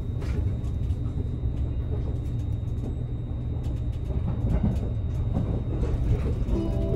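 Cabin running noise of a JR Kyushu 787-series limited-express car under way: a steady low rumble of wheels on rail. Near the end a two-tone onboard chime starts, the kind that precedes a train announcement.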